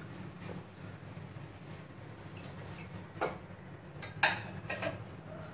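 Metal fork clinking and scraping against a ceramic plate while boiled potatoes are mashed, a few sharp clinks in the second half, the loudest a little after four seconds. A steady low hum runs underneath.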